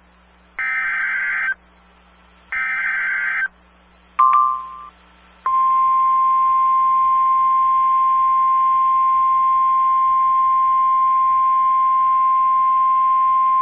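Emergency Alert System signals: two bursts of the SAME digital header, each a harsh warbling screech about a second long, one second apart. A short beep follows about four seconds in, and from about five and a half seconds a loud, steady single-pitch attention tone, the National Weather Service alert tone that comes before the spoken warning.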